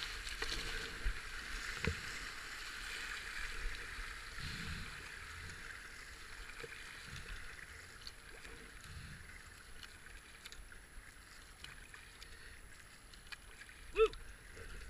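Whitewater rushing around a kayak as it runs a rapid, slowly fading as the river calms, with a single knock about two seconds in. Near the end a short, loud pitched call stands out above the water.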